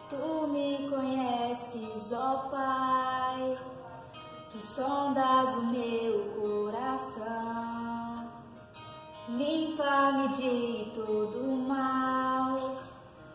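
A woman singing a Portuguese gospel worship song solo over an instrumental backing track, in long phrases with held notes and short breaks between them.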